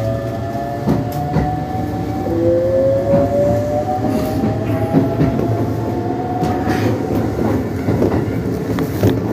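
Keisei 3600 series electric train running, its VVVF inverter and traction motors giving a whine that slowly rises in pitch as the train gathers speed, over a steady rumble. Wheels click over rail joints now and then.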